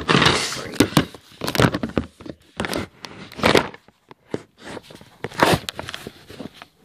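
Handling noise of the camera being moved and set in place: irregular knocks, bumps and short rustling scrapes as it rubs against clothing and knocks on the table.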